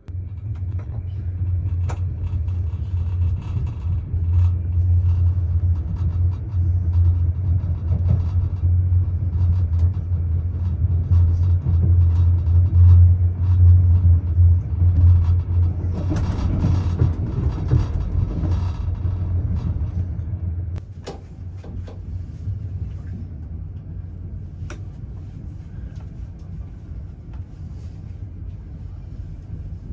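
A moving passenger train heard from inside the carriage: a steady low hum and rumble of running on the rails. It grows louder and rougher around the middle, then settles to a quieter rumble for the last third.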